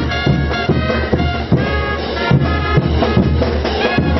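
Brass band music, with horns playing a melody over a steady drum beat.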